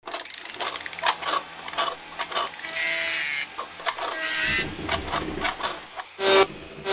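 Mechanical sound effects for an animated logo: a quick run of clicks and ratchet-like clacks with two short whirring sweeps, then a loud pitched toot near the end.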